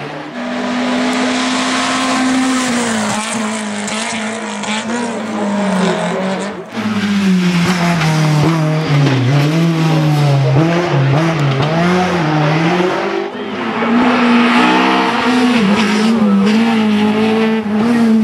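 Rally car engines driven hard on a hillclimb, the engine note rising and falling sharply with gear changes and throttle lifts into corners, with some tyre squeal. The sound breaks off abruptly about a third of the way through and picks up again on another pass.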